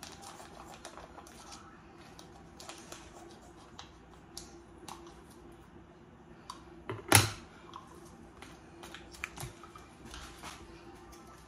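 Crinkling and rustling of a foil-and-plastic cheese sauce packet being handled and cut open with scissors, with many small clicks and one sharp, much louder snap about seven seconds in.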